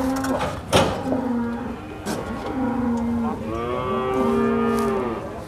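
Cattle lowing, about four moos in a row, the last one long and full from about three and a half seconds in. A single sharp knock sounds just under a second in.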